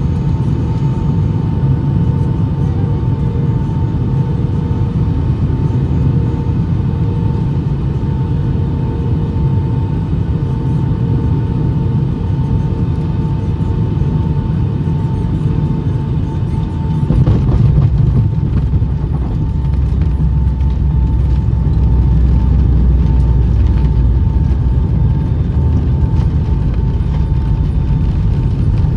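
Cabin sound over the wing of a Boeing 757-200 with Pratt & Whitney PW2037 engines landing: steady engine and airflow noise with a thin high engine tone on final approach. About two thirds through comes the jolt of touchdown, then the deep rumble of reverse thrust builds and eases off near the end.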